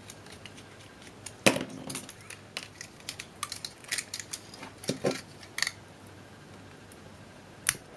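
Scattered sharp clicks and light metallic clinks as a digital camera's sheet-metal LCD frame and circuit boards are handled and pried apart by hand. The loudest clack comes about one and a half seconds in, then a run of smaller ticks, and one more click near the end.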